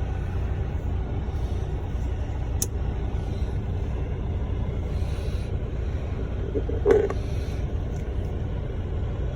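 Steady low rumble of a running vehicle, with a faint tick about two and a half seconds in and a sharper click near seven seconds in.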